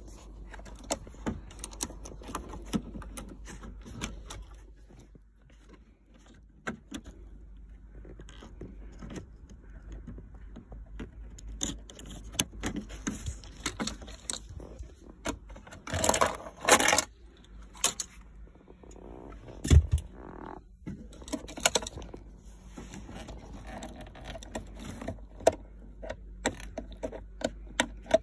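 Plastic clicks, rattles and rustling as hands work the phone cradle and its wiring connector loose in a BMW 3 Series (E90-series) centre armrest. There is a louder spell of rattling about sixteen seconds in and a single thud near twenty seconds.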